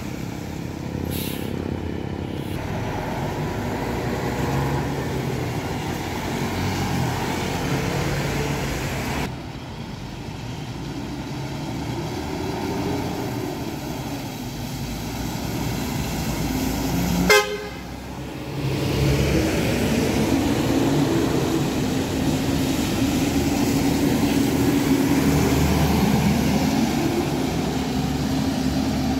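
Large diesel coach buses driving past on a wet road, engines running with tyre hiss on the wet asphalt, and a brief horn toot about two-thirds of the way through.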